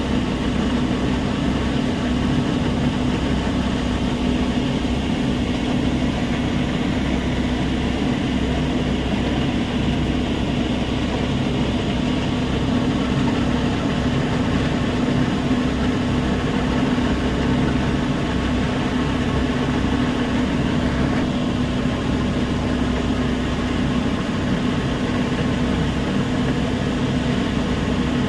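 Heavy machinery running steadily, a continuous engine-like hum with one steady tone and no change in level.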